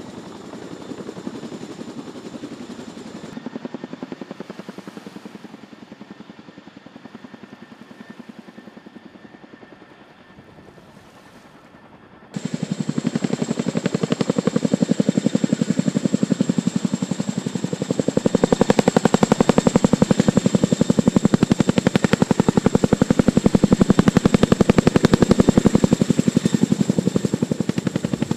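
CH-47 Chinook tandem-rotor helicopter hovering, its rotors chopping in a fast, steady pulse with a thin high whine over it. The sound jumps suddenly much louder about twelve seconds in and stays loud.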